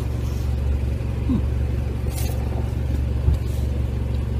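Steady low drone of a 4x4's engine and running gear heard from inside the cab, with a small knock about three seconds in.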